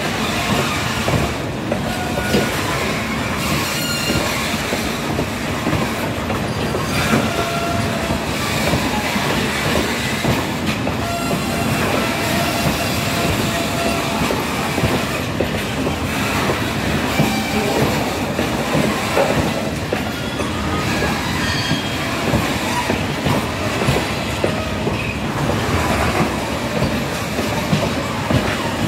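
Covered goods wagons of a freight train rolling past, a steady rumble and clatter of wheels over the rail joints. Short high squeals from the wheels come and go throughout.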